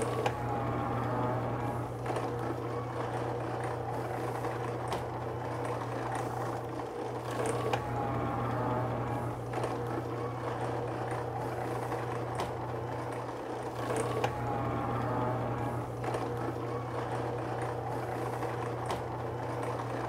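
Electric dough sheeter running with a steady motor hum as cassava dough is fed through its rollers. A wavering higher sound comes back three times, about six to seven seconds apart.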